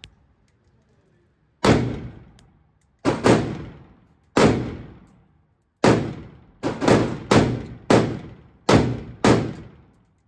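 Gunshots fired one at a time, about eleven in all at an uneven pace. Some come in quick pairs less than half a second apart. Each shot leaves a long echoing tail that fades over about a second.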